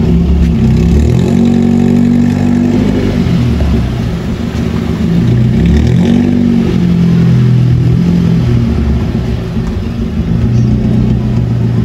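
Modified Suzuki Cultus engine and exhaust while the car is being driven, the engine note rising and falling several times as it speeds up and eases off. The exhaust has a hole that the owner says lets out a cracking sound.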